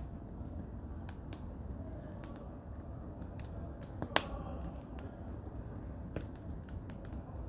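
Firewood burning, crackling with scattered sharp pops, one much louder snap about four seconds in, over a steady low rumble of wind.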